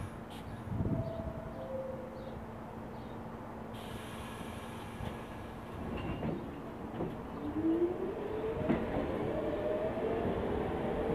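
R46 subway train pulling out of the station: a steady hum, then the traction motors whine rising in pitch from about seven seconds in as it picks up speed, with a few clicks from the wheels on the rails and the sound growing louder toward the end.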